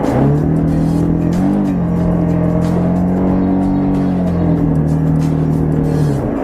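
Motorcycle engine revved hard and held at high revs for about six seconds while the rear tyre slips on the muddy off-road track, with a brief rise and dip in pitch about a second and a half in; the revs drop away near the end.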